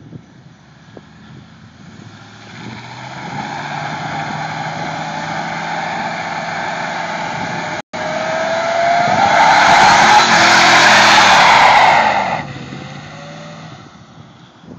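A V8 vehicle doing a burnout: the engine revs up under load and the spinning tyres squeal, building after a couple of seconds and loudest around ten seconds in, with a rising pitch in the engine note. The squeal cuts off sharply about twelve seconds in as the engine drops back to idle; there is a brief gap in the sound about halfway through.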